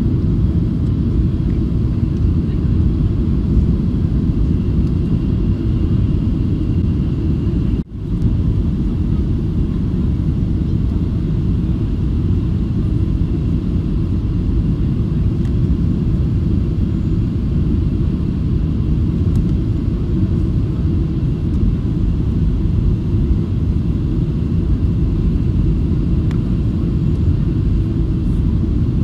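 Jet airliner cabin noise heard from a window seat over the wing on the approach: a steady low rumble of engines and airflow with a faint hiss above it. The sound breaks off for a moment about eight seconds in.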